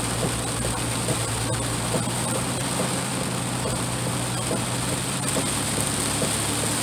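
Heavy rain falling on a truck's roof and windshield, heard from inside the cab while driving, with many small scattered ticks of drops. A steady engine and road hum runs underneath.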